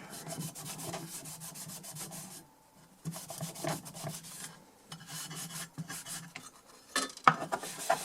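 Rapid back-and-forth scrubbing on the rusted metal casing of a DI box, rubbing off rust loosened with WD-40: quick strokes, several a second, with two short pauses and a few sharper knocks near the end.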